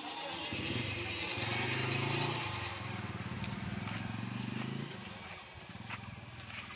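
A motor vehicle's engine passing close by, growing louder over the first two seconds and fading out about five seconds in.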